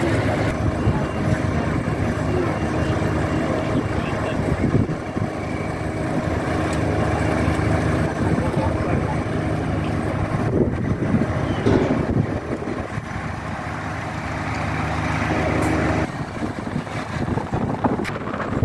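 A large diesel engine running steadily with a constant pitch, with voices around it. The engine sound drops away about sixteen seconds in.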